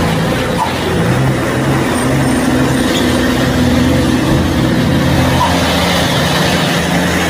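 Diesel dump truck engine running loudly and steadily, a constant low drone, while the truck's hydraulic hoist holds the loaded bed raised to tip it.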